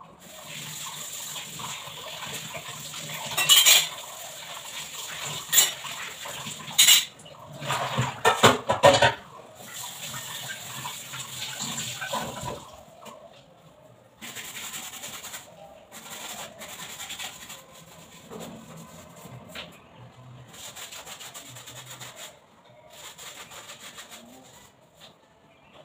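Kitchen tap running into the sink while utensils clink and clatter, with several sharp knocks between about four and nine seconds in. In the second half the water runs in shorter spells with lighter clinks.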